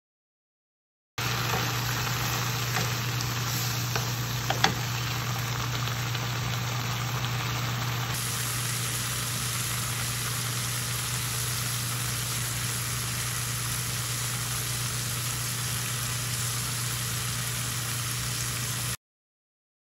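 Green peas sizzling in a nonstick frying pan, a steady hiss over a constant low hum. It starts abruptly about a second in and cuts off near the end, with one sharp click about three and a half seconds in.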